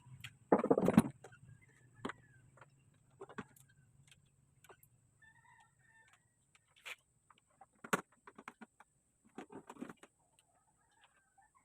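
Hand work on a bolo handle: a loud scraping burst about half a second in, then scattered sharp knocks and taps. Faint bird calls, like chickens clucking, sound in the background.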